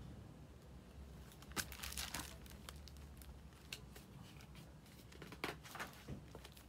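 Paper pages of a picture book being handled and turned: a faint series of short rustles and crinkles, starting about a second in.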